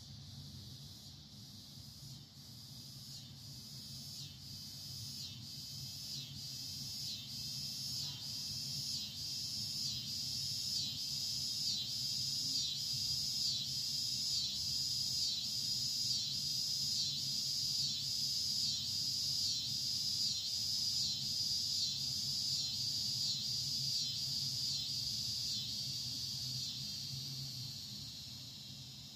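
High-pitched, rhythmically pulsing insect song, such as a cicada or katydid, swelling louder over the first half and fading again near the end, over a faint low steady hum.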